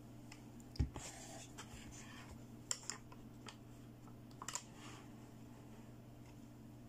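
Light handling sounds on a plastic toy CT scanner: a soft thump about a second in, then a few short sharp plastic clicks and taps, over a faint steady hum.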